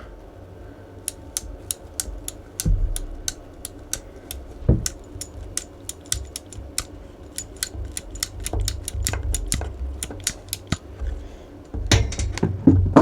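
A hand crimping tool with 35mm cable-lug dies clicking over and over, about four clicks a second, as it is worked closed on a copper cable lug. There is some louder handling noise near the end.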